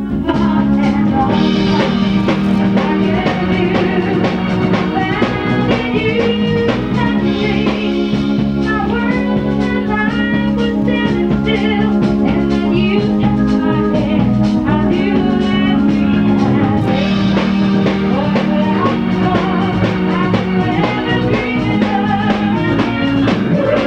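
Rock band playing live: electric guitars and a keyboard over drums, with a sustained low bass line and wavering lead lines above it.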